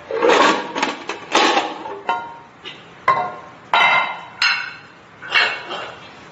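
Repeated metal clanks, about eight in six seconds and irregularly spaced, each with a short ring, as of heavy metal objects being knocked together or set down.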